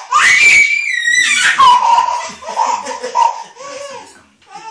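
A toddler squealing and laughing loudly: a high shriek in the first second or so, then lower, drawn-out laughing calls that die down near the end.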